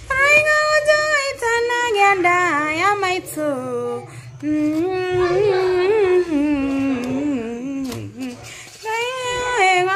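A woman singing a melody with long, wavering held notes, broken by short pauses about four seconds in and again near the end.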